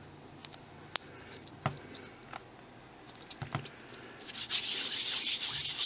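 Hands working small balls of polymer clay: a few faint clicks and taps at first, then from about four seconds in a steady rubbing hiss of skin on skin as the clay is rolled between the hands.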